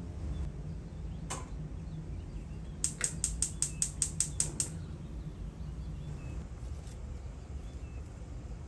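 One sharp click, then a second and a half later a quick even run of about ten sharp clicks, over a low steady hum, with faint bird chirps in the background.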